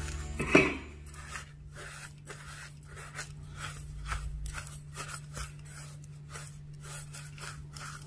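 Silicone spatula scraping and mashing butter into granulated brown and white sugar in a glass bowl: gritty scraping strokes, about three a second, after a sharp knock about half a second in. A faint steady low hum runs underneath.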